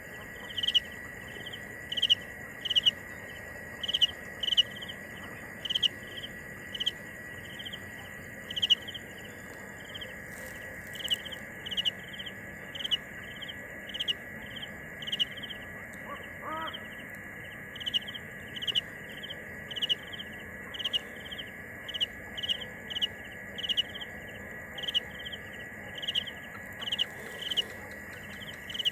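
Field cricket chirping: short, evenly repeated chirps, roughly one to two a second, over a steady high background tone.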